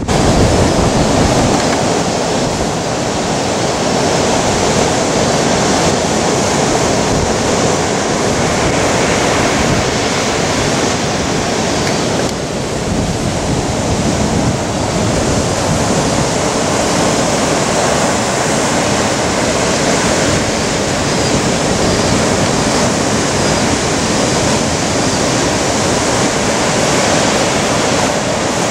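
Heavy surf from a hurricane swell breaking continuously: a steady, loud wash of noise with no separate crashes standing out.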